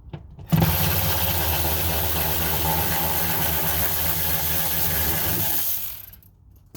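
Power drill running steadily for about five seconds, backing out a bolt from the door panel, then stopping.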